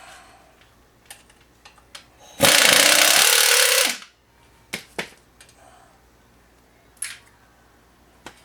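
A 3/8-inch-drive Ingersoll Rand air ratchet runs in one loud burst of about a second and a half, starting about two and a half seconds in, as it spins a fastener on the front axle assembly. Short metallic knocks and clicks of tools and parts come before and after it.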